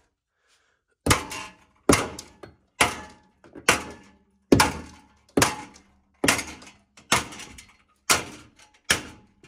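Claw hammer banging on a ceiling-mounted metal fluorescent light fixture, ten blows at about one a second with a short ring after each, to smash the fixture loose from the ceiling.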